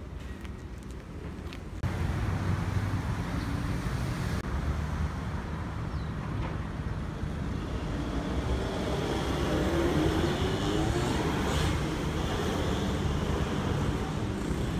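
Road traffic: a steady rumble of passing cars, which jumps louder about two seconds in. Around the middle one vehicle's engine rises in pitch as it pulls away.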